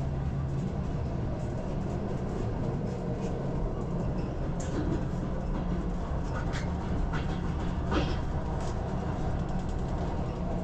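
Steady rumble and rattle of a passenger train running on rails, heard from inside the carriage, with a few faint clicks and squeaks about halfway through.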